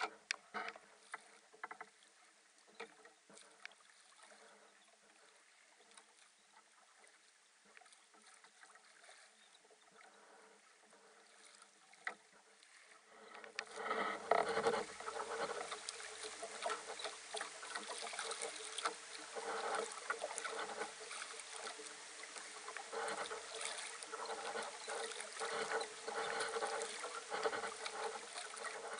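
Water lapping and splashing against the hull of a small sailboat moving slowly through calm water, with scattered small clicks and ticks. The splashing grows clearly louder and busier about halfway through.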